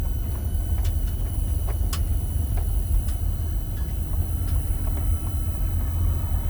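Steady low rumble of a vehicle driving along the road, with a few faint clicks.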